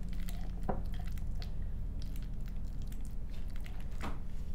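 A metal fork mashing diced avocado against the side of a ceramic bowl: soft squishing with scattered light clicks of the fork on the bowl, two of them a little louder.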